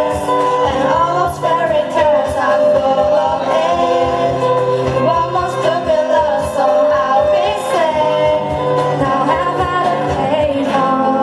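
Group of singers performing a pop song live over guitar-club accompaniment, with a steady rhythmic beat under the voices. Near the end the beat drops out and the voices carry on alone.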